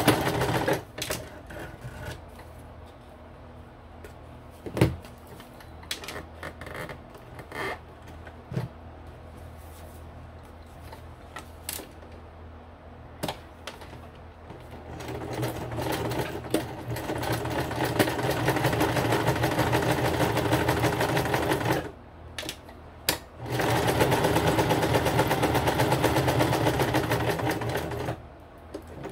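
Electric sewing machine running a zigzag stitch through paper cardstock. It stops about a second in, then there are about fourteen seconds of scattered small clicks and knocks. It runs steadily for about seven seconds, pauses for a second, and runs about five seconds more.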